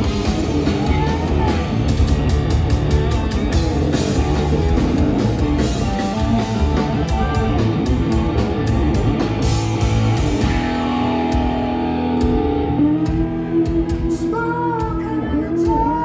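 A live hard rock band playing loud, with drum kit, electric bass and electric guitar. About ten seconds in, the drums and cymbals drop out, leaving held guitar and bass notes, and a male voice sings over them near the end.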